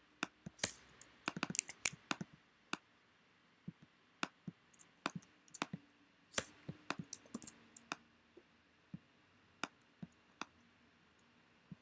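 Computer mouse clicks and keyboard keystrokes: a quick run of clicks in the first two seconds, then single clicks scattered at irregular gaps.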